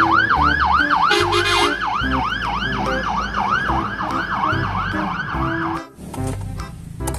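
Fire engine siren on the fast yelp setting: a rapid rising-and-falling wail, about three cycles a second, that cuts off suddenly about six seconds in.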